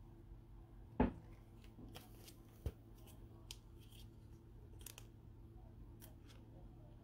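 Trading cards handled with gloved hands: a knock about a second in and a smaller tap a little later, with light clicks and rustles as the cards are slid and flipped.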